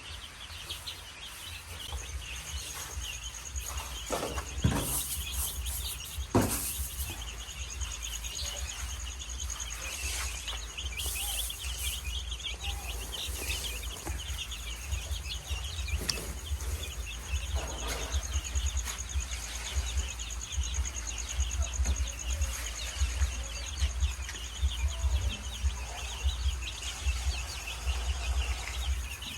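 A steady chorus of night insects with a high pulsing trill and dense chirping, over a continuous low rumble. Two sharp knocks come about five and six seconds in.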